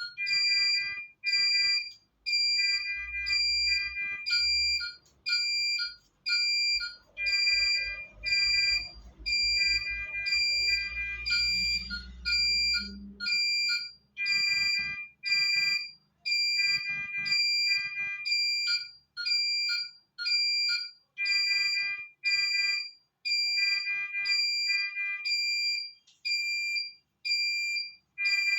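Electronic alarm beeping over and over in quick, even pulses at several fixed high pitches. A low rumble and some rough noise sit beneath it for roughly the first half.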